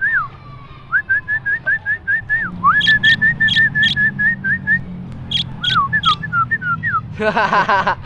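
A person whistling runs of short, quick bird-like chirps, several a second, imitating a caged budgerigar.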